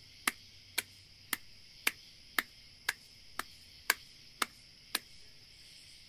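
Sharp, evenly spaced clicks, about two a second, that stop near the end, over a steady high hiss of night ambience.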